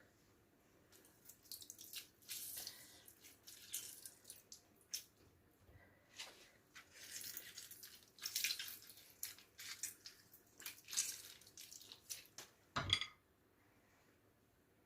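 Lemon juice being squeezed into a pot of rice and boiling water: irregular drips and spatters, with one sharp knock near the end.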